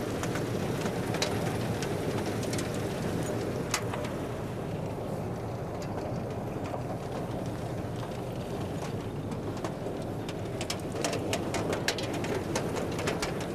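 Potato harvester running: a steady machinery rumble from the harvester and its sorting belt, with scattered sharp clicks and knocks that grow thicker near the end.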